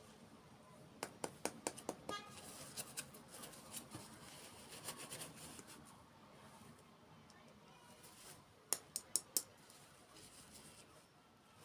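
Small plastic toy packaging being handled and opened by hand. A quick run of sharp clicks and taps comes about a second in, then light rustling and scattered taps, and a tight cluster of four sharp clicks near the end.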